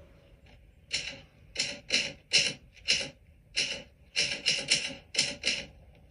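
Typewriter keys striking one at a time, about a dozen sharp clacks at an uneven pace.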